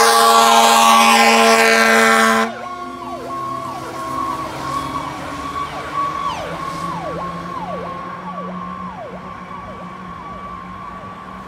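Fire engine passing with its siren and a blaring air horn: the horn's steady chord cuts off suddenly about two and a half seconds in. The electronic siren keeps sweeping down and up in pitch, about once or twice a second, and fades as the truck drives off.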